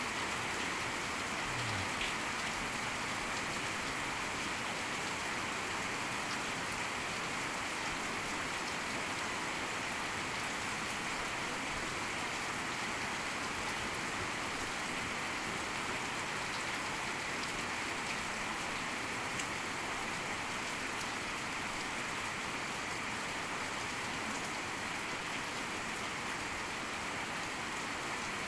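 Heavy rain falling steadily, an even wash of countless drops with no let-up.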